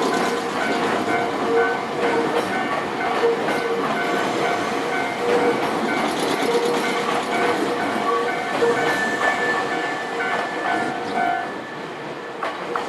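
A Nankai limited express Southern train running over a level crossing, with the crossing's warning bell ringing in short, evenly repeated dings. The noise eases off about twelve seconds in.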